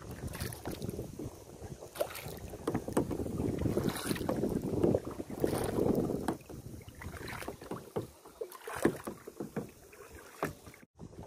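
Kayak paddle strokes dipping and splashing, with water lapping at the hull and wind buffeting the microphone. The splashes come at an irregular pace, and the sound drops out briefly near the end.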